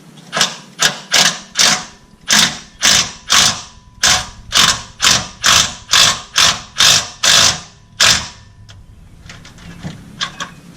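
Socket ratchet tightening a compressor mounting bolt: a quick run of clicks on each back-stroke, about two strokes a second, with a short break near two seconds and again before four. The ratcheting stops about eight seconds in, once the bolt is snug, and a few faint clicks follow near the end.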